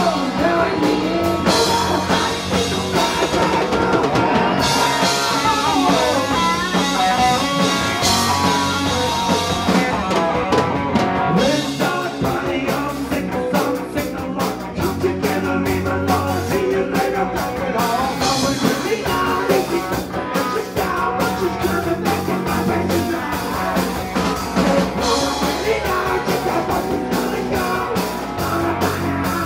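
Live rock band playing loud: electric guitar, bass guitar and drum kit, with a pitched lead line that slides in places and a steady beat of cymbal strokes from about halfway through.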